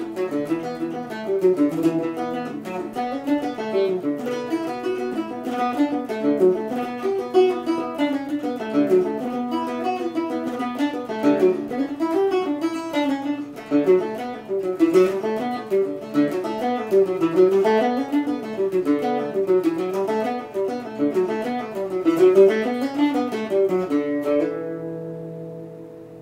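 Octave mandolin playing a fast Irish reel, a quick run of picked melody notes. The tune ends about 24 seconds in, and its last notes are left to ring and die away.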